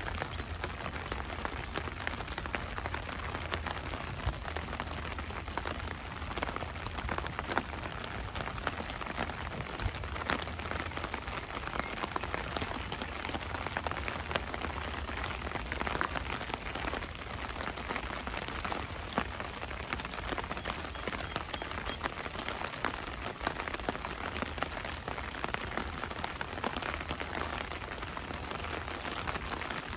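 Steady rain falling on the ground, a dense even hiss dotted with many small drop ticks. A low rumble sits underneath and weakens after about the first third.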